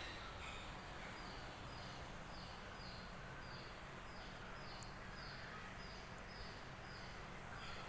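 Quiet room tone with a faint, high chirp repeating evenly about twice a second.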